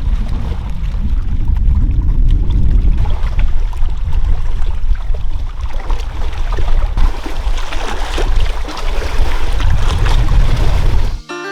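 Rain falling, with wind rumbling hard on the microphone and a patter of drops. It cuts off suddenly near the end.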